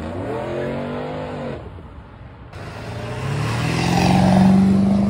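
Ford F-250 pickup's engine accelerating past up close, its note rising and loudest about four seconds in. Before it, another vehicle's engine revs up and fades over the first couple of seconds.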